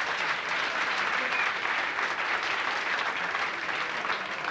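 Club audience applauding steadily after a joke's punchline.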